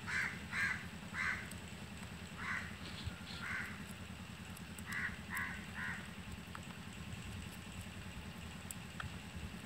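A bird calling in a string of short, separate calls, about eight in the first six seconds, some in quick pairs and threes, then falling silent. A steady low hum runs underneath.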